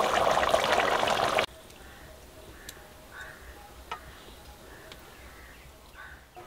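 Food in a hot, steaming cooking pot sizzling loudly, cut off sharply about a second and a half in. After that there is only a faint background with a few light clicks.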